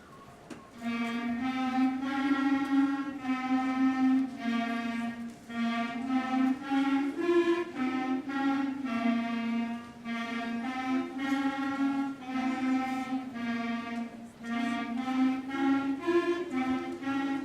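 A school band's clarinet section playing a piece together. A held low line sits under shorter melodic notes above, starting about a second in, without a single squeak.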